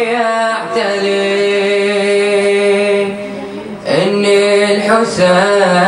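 A teenage male reciter chanting the opening of a Shia mourning elegy (latmiyya) into a microphone, holding long drawn-out notes with a short break about four seconds in.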